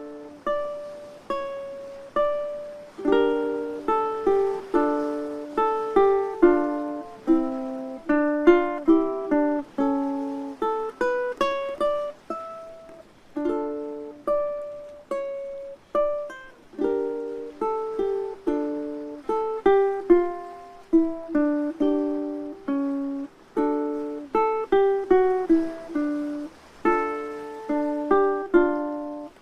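Instrumental ukulele music: a plucked melody with chords, each note ringing and dying away. It starts suddenly out of silence right at the beginning.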